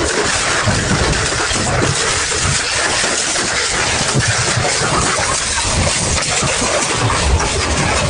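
Industrial double-shaft shredder running under load, its cutters grinding and crunching through material in a steady, loud din of crackles over uneven low knocks.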